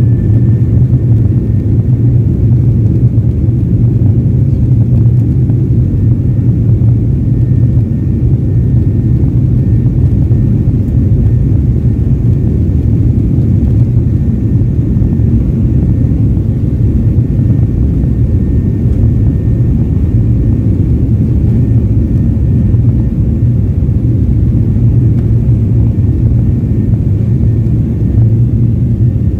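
Steady low rumble of a Boeing 737 jet airliner's engines and airframe, heard from inside the passenger cabin as the plane taxis on the ground.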